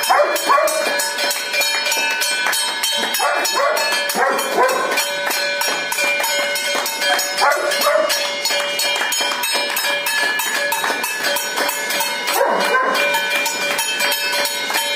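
Hands clapping in a steady, dense clatter, with metal bells ringing on sustained tones throughout. A few short pitched calls break in now and then.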